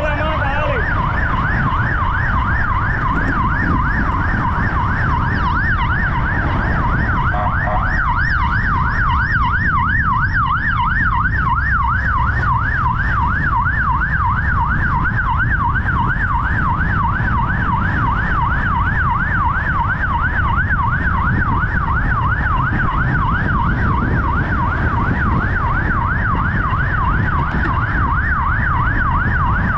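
Emergency vehicle siren in a fast yelp, its pitch swinging up and down several times a second without a break, over a steady low rumble.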